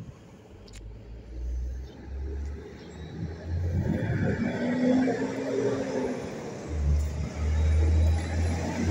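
A truck approaching along the street, its engine and tyre noise growing louder toward the end.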